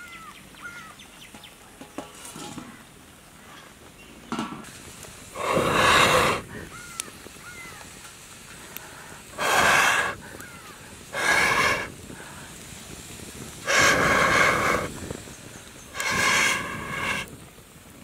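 Someone blows through a metal blowpipe into a wood cooking fire to fan it. There are five long rushes of breath, each about a second, spread from about five seconds in to near the end.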